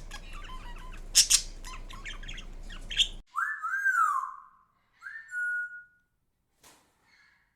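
Indian ringneck parakeet squawking and chattering, with sharp loud squawks about a second in, then, after an abrupt change, two clear whistles: the first swoops up and down, the second ends in a held steady note. A single click follows near the end.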